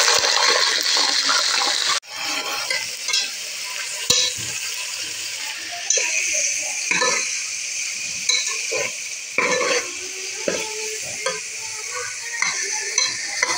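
Chicken wings frying in hot oil with browned onions in a metal pot: a loud sizzle for the first two seconds that drops off sharply, then steady sizzling with a metal spatula scraping and clinking against the pot as the wings are stirred.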